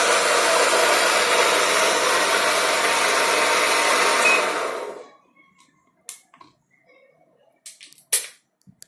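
Intex front-load washing machine spinning its drum on its universal brushed motor, a loud steady whirring that stops about four and a half seconds in. A few faint clicks and knocks follow.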